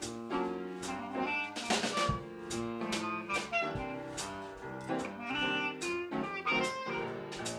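Instrumental background music with a drum beat and a melody line.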